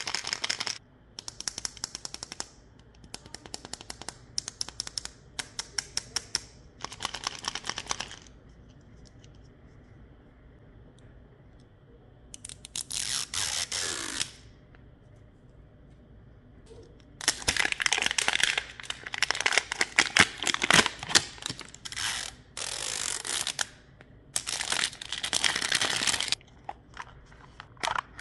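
Plastic Mini Brands capsule ball shaken in the hand in a series of rattling bursts. Then a single tearing sound as its plastic seal strip is peeled off, followed by paper and plastic packaging crinkling and tearing as the capsule is opened and unwrapped.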